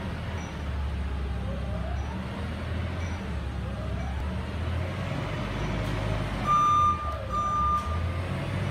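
Forklift running with a steady low engine hum and faint rising and falling whines. Near the end come two loud beeps in quick succession, of the kind a forklift's warning alarm gives.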